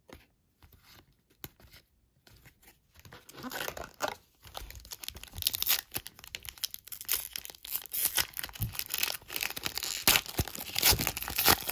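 After a few faint clicks, a foil trading-card pack wrapper crinkles and is torn open by hand, the crackling and tearing growing louder over the second half.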